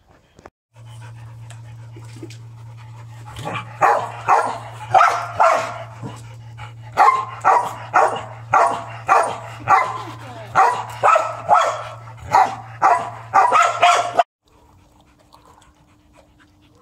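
A Belgian shepherd dog (Tervuren) barking over and over, about two barks a second with a short break partway through, at someone holding up a toy. A steady low hum runs underneath, and both stop abruptly near the end.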